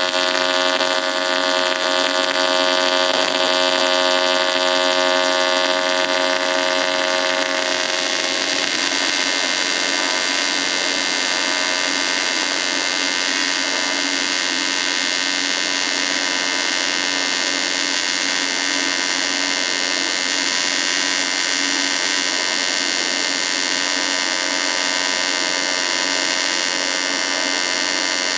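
AC TIG welding arc on cast aluminium, a steady loud electrical buzz that goes a little rougher about eight seconds in.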